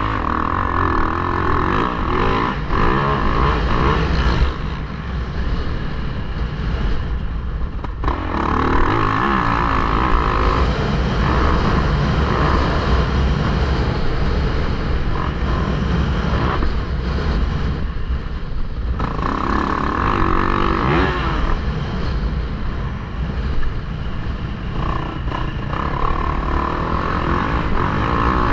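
Yamaha YZ450F single-cylinder four-stroke motocross engine ridden hard, the throttle opening and rolling off over and over and dropping away twice for a few seconds. Steady wind rumble on the helmet-mounted microphone runs underneath.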